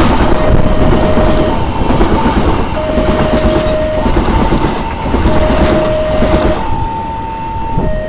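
A diesel-hauled passenger train passes close by, its wheels clattering and rumbling over the rails. The loudest moment comes as the locomotive goes by at the start. Throughout, the level-crossing warning alarm sounds two alternating tones, switching between low and high about every second.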